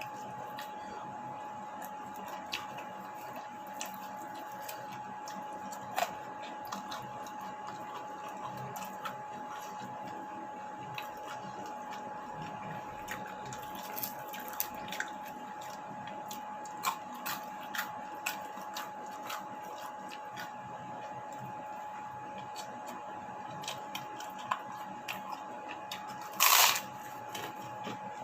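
Someone eating: scattered small clicks and smacks of chewing and handling food, with one louder short scrape or rustle near the end, over a steady high-pitched hum.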